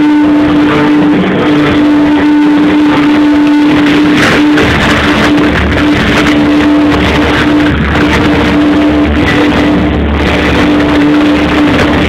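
Loud rock-style show music with guitar, over a single note held steady throughout. A deeper bass comes in about four and a half seconds in.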